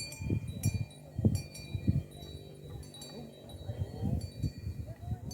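Metal bells on herded cows clinking and ringing, an uneven run of strikes that come every fraction of a second and each ring on briefly, over low, indistinct thuds and rumbles.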